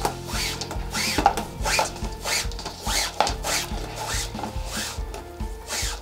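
Nylon paracord strands rubbing and swishing as they are pulled through the hands, about two pulls a second, over background music.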